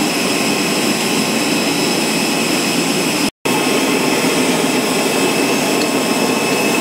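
Jet airliner at its stand, a TransAsia Airways Airbus A320: a loud, steady rushing noise with a high-pitched whine over it. It breaks off for a moment about halfway through, then carries on unchanged.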